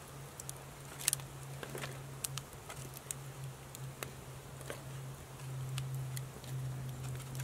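Wood campfire crackling under a grill grate, with scattered sharp pops, over a low steady hum.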